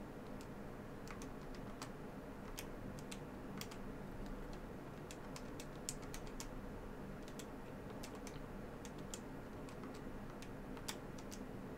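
Keys pressed one at a time to enter numbers into a calculator, a faint series of irregular clicks over a low steady hum.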